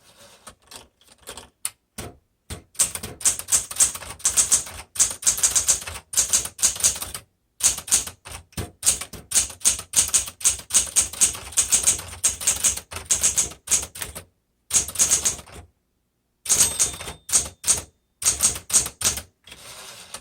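Smith Corona Galaxie 12 manual typewriter being typed on: quick runs of sharp key and typebar strikes, broken by short pauses.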